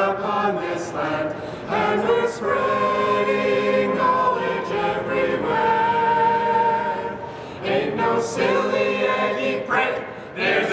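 A group of voices singing together without instruments, holding long notes.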